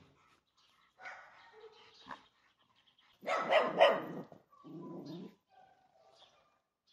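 A dog barking in a few short bouts; the loudest comes a little over three seconds in, followed by a lower, shorter one.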